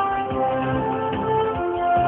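Music: a melody of held notes over a steady low beat.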